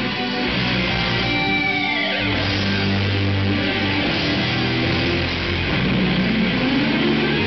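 Live rock band playing loudly: distorted electric guitars, bass and drums, with keyboards, in a heavy rock style. A falling pitch sweep comes about two seconds in, and a rising one near the end.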